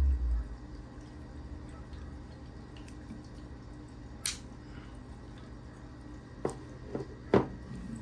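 Handling of a white plastic MacBook Air power adapter: one sharp click about four seconds in as its folding prongs are worked, then a few knocks near the end as it is set down. A low rumble dies away in the first half second.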